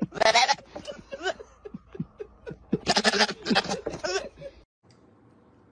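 A goat bleating: two loud cries, one at the start and one about three seconds in, with shorter bleats between. It stops about four and a half seconds in.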